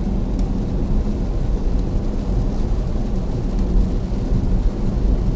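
Heavy rain on a Tesla Model S Plaid and its tyres on the wet highway, heard from inside the cabin as a steady low rumble with no engine note.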